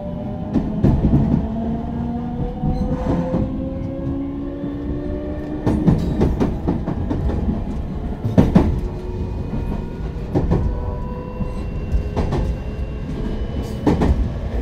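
Running sound of a JR West 223 series 0-subseries electric train with Toshiba GTO-thyristor VVVF inverter traction. For the first few seconds several motor and inverter tones rise steadily in pitch as the train gathers speed. It then runs on at a steadier pitch, with repeated knocks of the wheels over rail joints.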